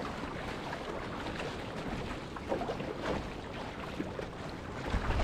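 Paddle strokes and choppy seawater splashing and sloshing around a small boat's hull. A low wind rumble on the microphone builds near the end.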